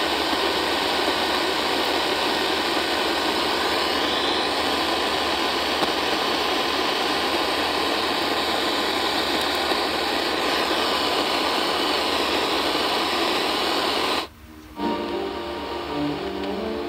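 AM radio receiver hissing with static, with no clear station coming through. About fourteen seconds in, the static cuts out briefly and music from a station comes in.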